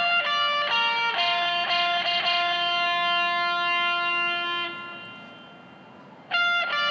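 Instrumental music: a guitar playing a slow melody, a run of single notes and then one long held note that fades away. A new run of notes starts near the end.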